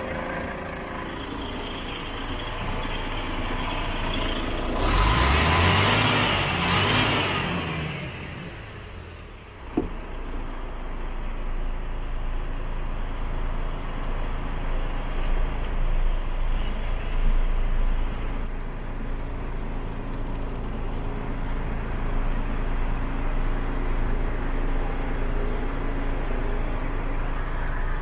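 Heavy diesel truck engine, the DAF XF105's Paccar MX, running: it rises in pitch for a few seconds about five seconds in. A single sharp knock comes about ten seconds in, and after it the engine carries on as a steady, low, muffled idle.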